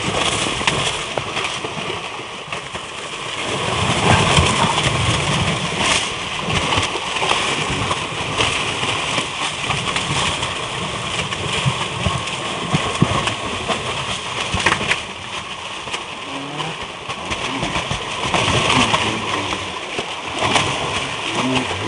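A net full of fish thrashing in shallow water, a continuous churn of irregular splashes and slaps.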